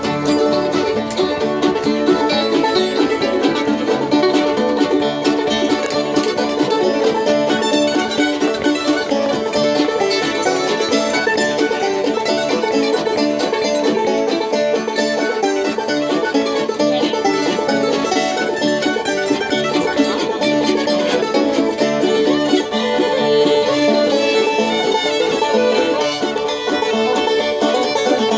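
Acoustic bluegrass jam: banjo, mandolins and fiddles playing a lively tune together.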